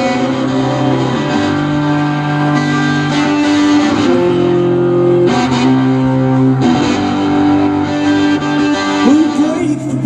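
Electric guitar through an amplifier, strumming held rock chords that change every second or two.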